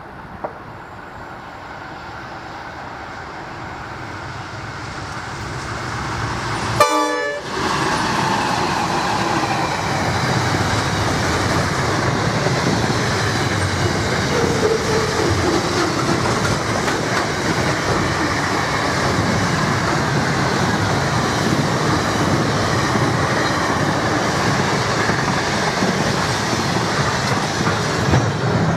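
Diesel locomotive hauling a long container freight train, growing louder as it approaches and giving a short horn toot as it arrives about seven seconds in. Then the loaded container wagons rumble and clatter steadily past on the rails until the train's tail passes near the end.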